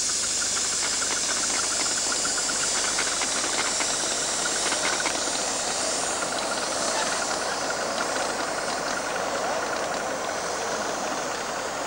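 Miniature live-steam locomotive passing, hissing steam steadily, with a run of small quick clicks from the train on the track; the hiss thins out after about six seconds as the train's trailing cars go by.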